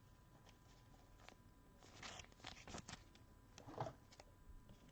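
Faint rustle and scrape of trading cards being handled, with a few soft ticks around the middle.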